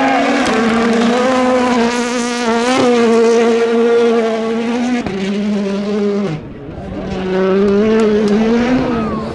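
A World Rally Car's 1.6-litre turbocharged four-cylinder engine running at high revs flat out. About six seconds in it drops briefly in pitch and loudness, then revs up again.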